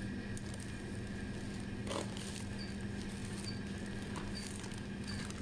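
Checkout barcode scanner beeping four times, short high beeps about a second apart in the second half, over a steady hum, with a few knocks and rustles of goods being handled.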